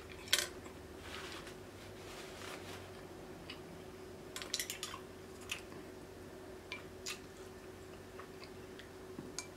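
Quiet eating sounds: soft wet chewing and mouth noises, with scattered small clicks and taps of a spoon against glass bowls of sauce, the sharpest about half a second in.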